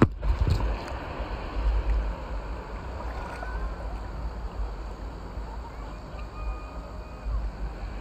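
Shallow seawater sloshing and lapping around a child wading in an inflatable swim ring, with wind rumbling on the microphone.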